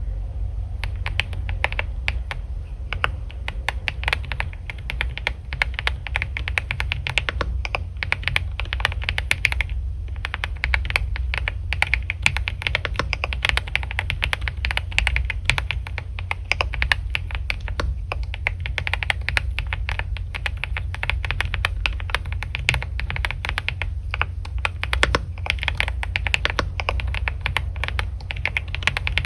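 Continuous fast typing on a computer keyboard, the clatter starting about a second in and pausing briefly partway through, over a steady low hum.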